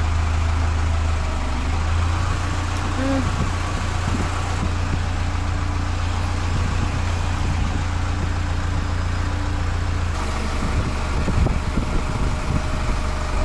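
Forklift engine idling steadily, its tone shifting slightly about ten seconds in, with a few light knocks near the end.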